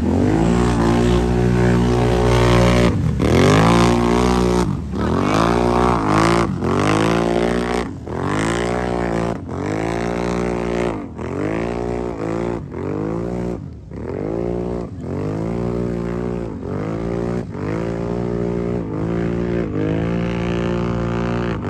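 ATV engines revving hard and repeatedly in a mud race, the pitch climbing and dropping back about once a second as the throttle is worked.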